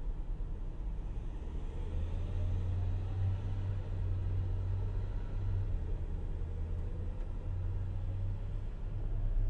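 Low, steady rumble of an idling motor vehicle at a standstill.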